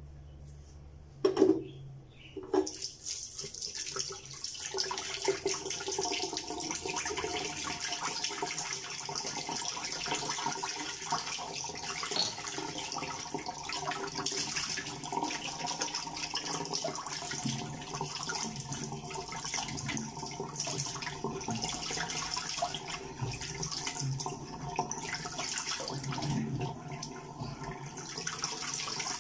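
Two sharp knocks, then tap water running steadily into a sink from a few seconds in.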